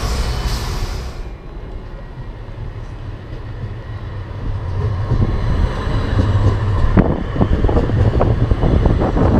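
Edinburgh tram, a CAF Urbos 3, approaching and passing close by. Its low rumble grows louder from about halfway, with irregular knocks as it goes past. A loud street hiss cuts off sharply about a second in.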